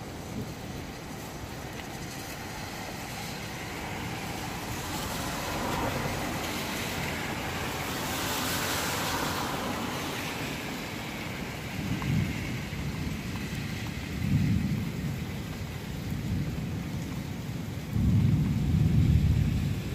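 Steady rain in a thunderstorm, its hiss swelling for a few seconds in the middle. Low rumbles of thunder come about twelve and fourteen seconds in, and a longer, louder rumble comes near the end.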